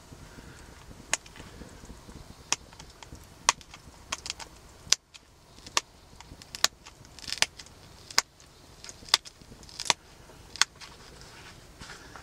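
A stone arrowhead being pressure-flaked with a deer antler tine, held in a leather pad: a series of sharp, irregular clicks as small flakes snap off the edge.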